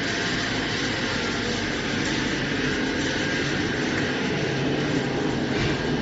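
Industrial tunnel microwave roasting machine running, a steady even whir of fans and conveyor.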